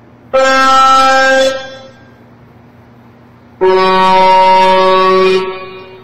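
Truck horn sounding two long, loud blasts, the second lower in pitch and longer than the first, over a steady low drone of highway traffic.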